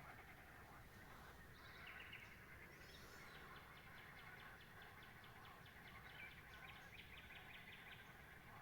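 Faint birdsong: a few chirps and a rising call, then a rapid run of repeated notes, about five a second, over a low steady background hiss.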